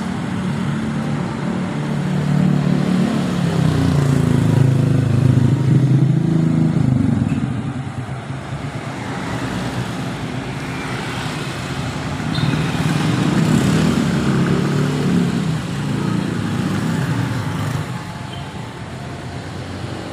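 Street traffic with motorcycles and cars passing close by, the engine noise swelling twice over a steady traffic hum.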